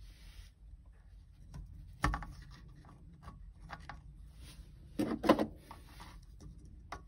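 Small clicks, scrapes and taps of hands working metal parts as a keeper clip is fitted to a VW Beetle's shift rod coupler. There is a sharp knock about two seconds in and a louder cluster of clicks about five seconds in.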